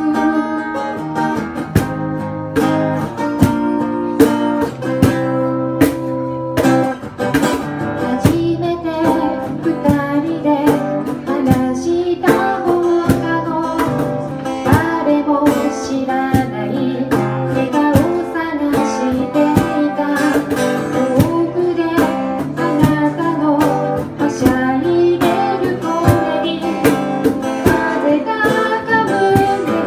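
Live female vocal into a handheld microphone, singing a Japanese pop ballad to a strummed acoustic guitar accompaniment.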